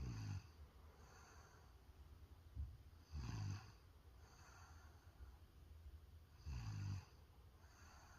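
A sleeping boy snoring in a slow rhythm: three low snores about three seconds apart, with softer breathing out between them. There is a short click about two and a half seconds in.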